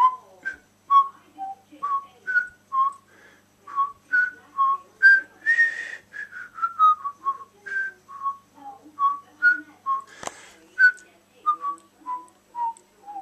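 A man whistling an idle tune through pursed lips: a long string of short notes that wander up and down, with one sharp click about ten seconds in.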